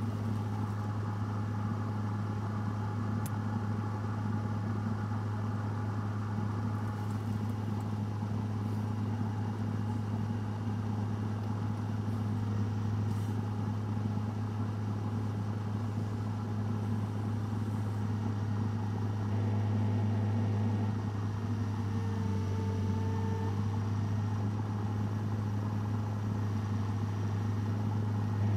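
A machine running steadily with a low, even hum, a little louder for a couple of seconds about two-thirds of the way through.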